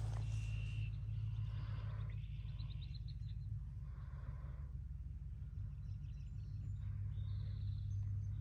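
Birds chirping in short calls and one brief fast trill over a steady low hum.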